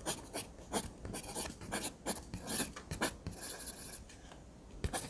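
Pencil scratching on paper in a quick, irregular series of sketching strokes, a few a second, easing off briefly near the end.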